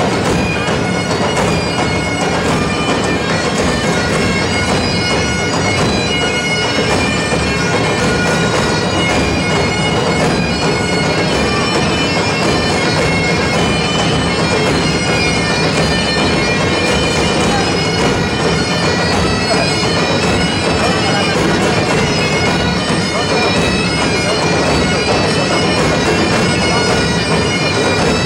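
Bagpipes playing a tune over their steady drones, loud and continuous.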